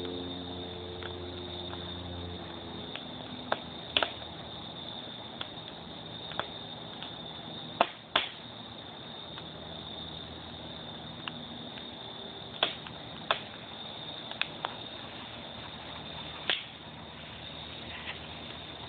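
Wood fire crackling in a mesh-walled fire basket: sharp, irregular pops over a steady hiss, with two loud pops close together about eight seconds in.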